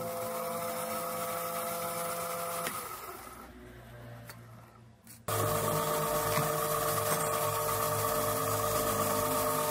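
Bench-top metal lathe running with a steady motor whine. It is switched off about 3 s in and spins down, then starts again suddenly about 5 s in, spinning the aluminium displacer clamped in its chuck.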